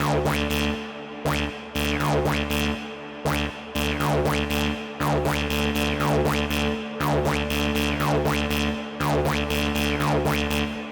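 Electronic music from a VCV Rack software modular synthesizer patch. A looping pattern of squelchy filter sweeps falls in pitch about once a second over a steady low drone, with sharp clicks on the beats.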